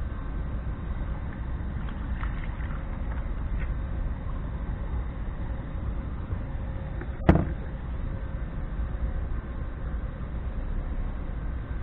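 Steady low rumble of wind on the microphone, with one sharp knock about seven seconds in.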